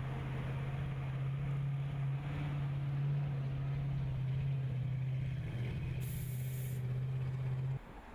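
A vehicle engine running at a steady idle, a constant low hum, with a brief hiss about six seconds in; the hum cuts off abruptly near the end.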